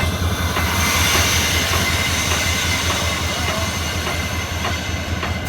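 EMD SD40-2 diesel locomotive's 16-cylinder engine running at low throttle, heard from inside the cab as the locomotive pulls away slowly. A broad hiss swells about a second in and eases toward the end, with a few faint ticks.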